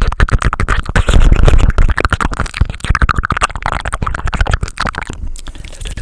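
Fast, aggressive ASMR mouth sounds close on the microphone: a rapid run of wet and dry clicks, pops and smacks with low thuds mixed in, loudest about a second in.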